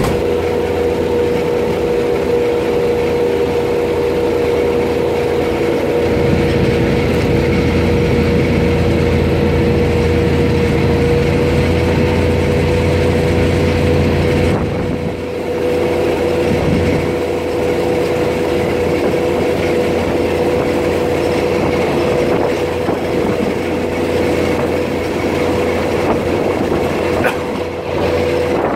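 Thai diesel passenger train running, heard from inside a carriage: a steady engine drone with one held note over the rumble of the wheels on the rails, the rumble swelling for a while and dipping briefly about halfway through.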